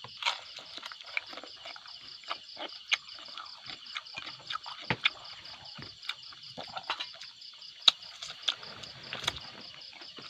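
A steady chorus of insects chirring in a high, finely pulsing drone, with scattered sharp clicks and knocks over it, a few of them louder.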